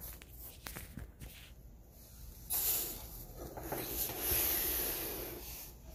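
Plastic padded mailer being worked open by hand: faint taps, then a hissy, scratchy rubbing and tearing of the plastic that starts about two and a half seconds in and swells again a little later.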